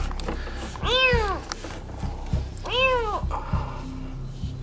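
Kitten meowing twice, each cry rising then falling in pitch: distress cries of a kitten trapped at the bottom of a water well.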